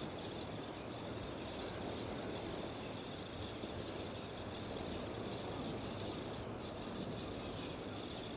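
Steady outdoor background noise: an even rumble and hiss with a faint high-pitched whine running through it.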